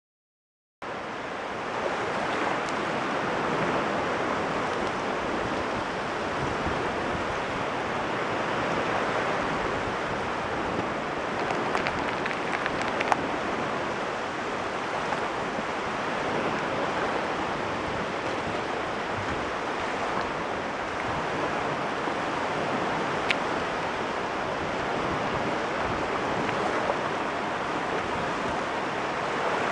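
Caspian Sea waves washing onto the shore: a steady wash that swells and eases slowly, starting abruptly about a second in.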